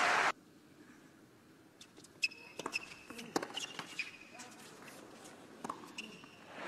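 Tennis rally on a hard court: sharp pops of racket strings striking the ball, and short squeaks of tennis shoes, over a near-quiet arena. The loudest hit comes about two seconds in.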